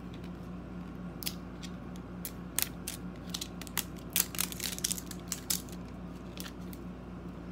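Crinkling and crackling of the printed wrapper layer being peeled and torn off a Make It Mini Lifestyle toy capsule ball. It comes as irregular sharp crackles, thickest in the middle of the stretch.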